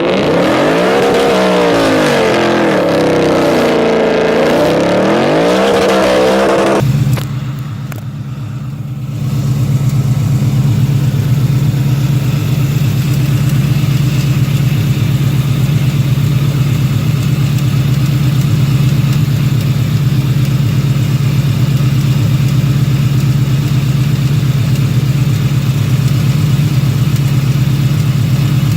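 Supercharged 2018 Ford Mustang GT's 5.0-litre Coyote V8 with a loud exhaust, revved up and down several times. About seven seconds in it changes abruptly to a steady idle.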